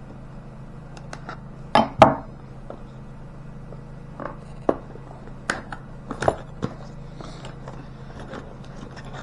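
Knife box and packaging being handled and opened: a string of small clicks, taps and scrapes, with two louder knocks close together about two seconds in.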